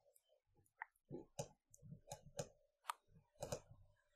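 Faint computer mouse clicks, several scattered through a few seconds, over quiet room tone.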